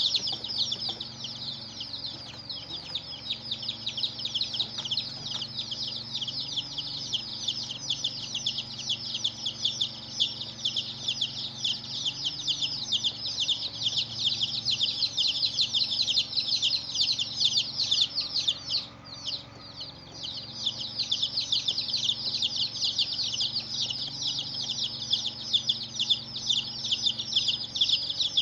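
A crowd of baby chicks chirping continuously, many high peeps overlapping, with a short lull about two-thirds of the way through.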